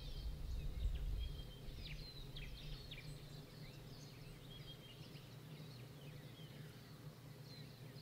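Birds chirping and whistling faintly outside, many short sliding calls that are busiest a second or two in, over a steady low hum and a low rumble in the first couple of seconds.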